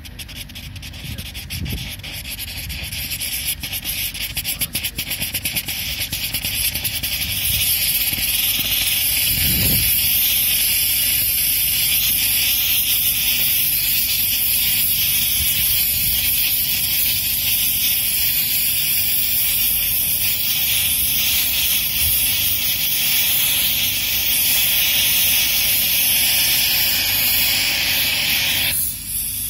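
Small gaseous-oxygen and PMMA (acrylic) hybrid rocket engine with a converging-diverging de Laval nozzle firing. It crackles and builds over the first several seconds, then settles into a steady, loud hiss. The hiss drops off sharply near the end.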